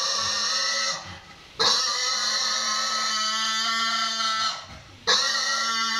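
Piglet screaming in distress while held upside down by its hind legs for castration: loud, high-pitched squeals, each lasting a few seconds, broken by short pauses for breath about a second in and again near the end.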